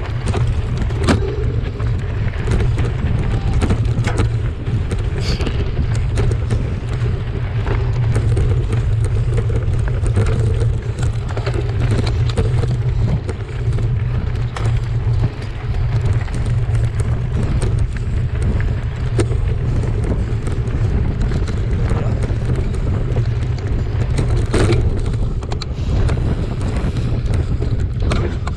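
Wind buffeting the microphone of a handlebar-mounted camera on a mountain bike ridden over a dirt and gravel trail, a steady rumble throughout. Through it the tyres crunch on the gravel and the bike rattles in many sharp clicks.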